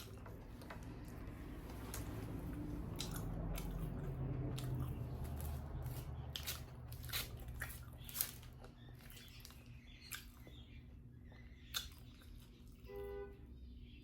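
Close-miked mukbang eating: chewing and wet mouth noises with a string of sharp clicks and crunches. A low rumble runs through the first half, and there is a short pitched vocal sound near the end.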